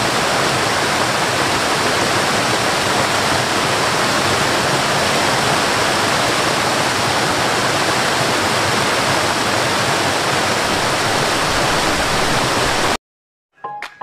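Waterfall rushing steadily, a dense even roar of falling water that cuts off abruptly about a second before the end.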